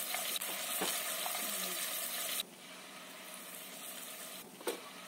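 Bean sprouts, egg and jicama stir-frying in a nonstick wok: a steady sizzle with light taps of a silicone spatula stirring. About two and a half seconds in, the sizzle drops suddenly to a quieter level, and a single short knock comes near the end.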